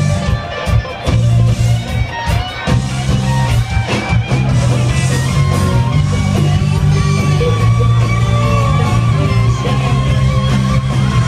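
Live band playing loud amplified music with guitars and heavy bass, heard from within the crowd, with a few brief stop-time breaks in the first three seconds.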